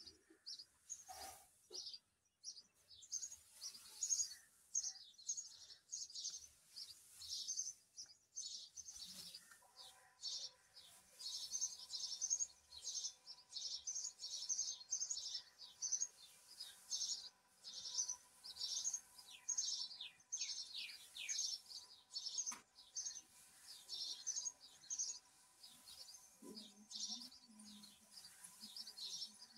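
Small birds chirping busily, many quick high chirps overlapping one another, with a faint steady hum coming in about a third of the way through.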